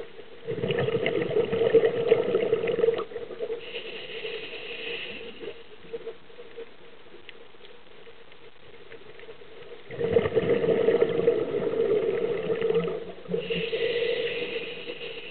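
Scuba diver breathing through a regulator, heard underwater: twice a long burble of exhaled bubbles, each followed by a shorter, higher hiss of the inhale.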